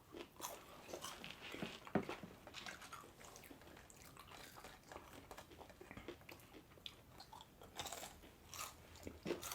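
Close-miked chewing and biting of pulled pork sandwiches and crispy fries: irregular crunchy clicks, with sharper ones about two seconds and eight seconds in.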